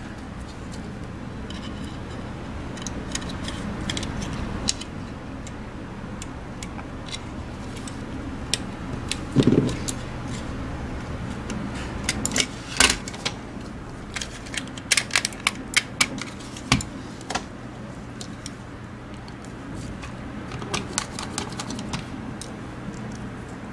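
Sharp plastic clicks and taps of a Logitech G Pro Wireless mouse's shell and parts being fitted back together and handled during reassembly. The clicks come in a dense run through the middle and a few more near the end, over a low steady hum.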